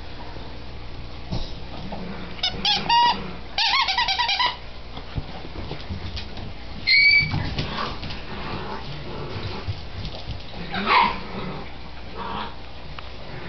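A puppy whining and squeaking in play. Clusters of high, quickly wavering squeaks come about three to four seconds in, a short squeak near seven seconds and one falling whine near eleven seconds.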